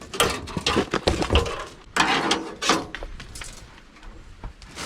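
Metal parts clanking and clattering as they are handled and set down, with a run of short knocks, the loudest about two seconds in.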